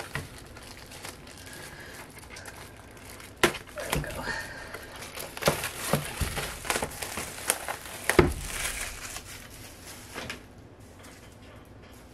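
Photobook packaging crinkling and rustling as it is handled, with sharp clacks and crackles scattered through it, busiest in the middle and dying down near the end.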